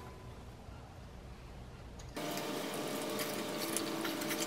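Faint rustling and small clicks of insulated electrical wires being handled, over a low room hum; the background changes abruptly about two seconds in.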